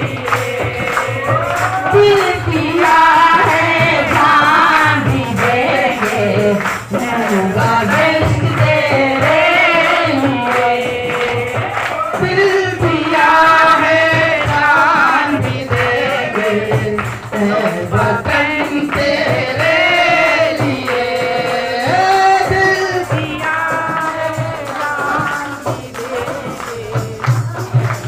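Music: voices singing together, with a tambourine keeping the beat.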